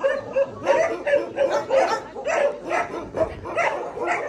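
Shelter dogs barking and yipping in quick succession, about three or four barks a second.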